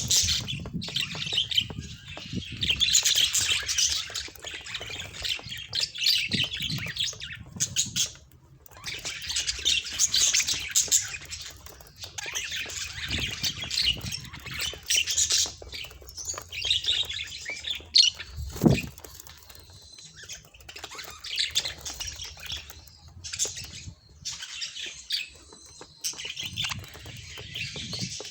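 Budgerigars chattering and chirping in bouts, with short lulls between them. A brief low sound cuts in about two-thirds of the way through.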